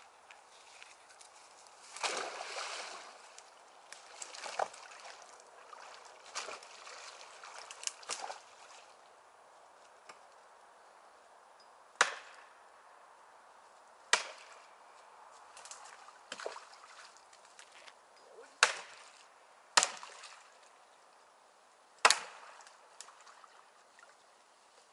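Axe chopping a dry standing tree: about five sharp, loud blows a few seconds apart in the second half, after rustling and lighter knocks.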